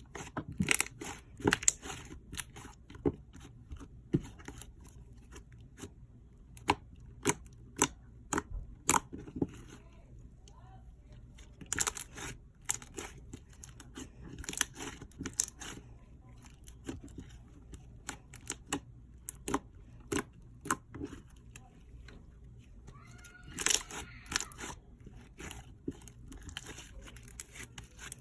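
Slime being squished and stretched by hand, making irregular sharp clicks and pops.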